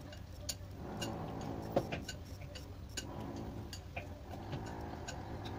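Wooden chopsticks clicking irregularly against a porcelain bowl while stirring meat in a cornstarch marinade, the clicks coming a couple to a few times a second, with one louder, ringing click about two seconds in. A steady low hum underneath.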